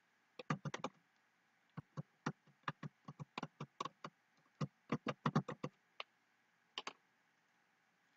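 Digits being typed on a computer keyboard: sharp key clicks in irregular quick runs, with short pauses between the runs, and a last pair of clicks near the end.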